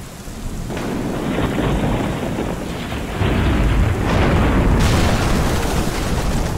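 Thunderstorm sound effect: steady rain with rolling thunder that swells in over the first second. A sharper, brighter crash joins just before five seconds in.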